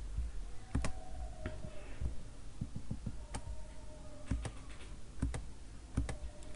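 Computer mouse clicking, a dozen or so short, sharp clicks at irregular intervals, with a faint background hum.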